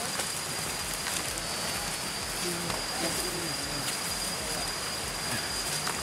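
An insect in the forest holding one steady high-pitched note over a background hiss, with a few soft footsteps on leaf litter.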